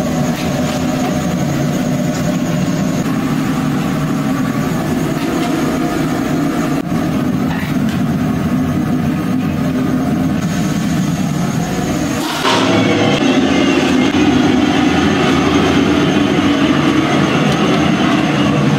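Moong dal bhaji deep-frying in a large kadhai of hot oil, under a steady low rumble. The sound steps up louder about twelve seconds in.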